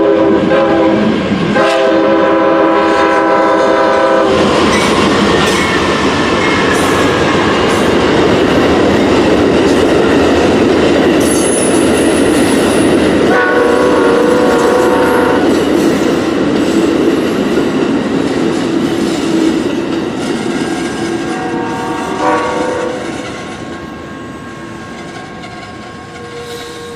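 Amtrak passenger train's air horn sounding two long chord blasts as it reaches the grade crossing, then the train rolling past with its wheels clattering over the rail joints. Another horn blast sounds about halfway through, and the rumble fades as the last cars go by.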